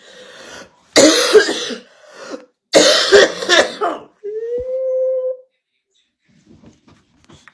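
A woman coughing hard and uncontrollably after inhaling a dab of cannabis concentrate: two loud, harsh coughing fits, then a held, slightly rising pitched sound for about a second before it goes quiet.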